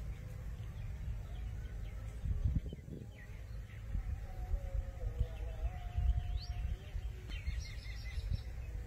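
Outdoor ambience: a low, uneven rumble with small birds chirping now and then, and a quick run of chirps near the end.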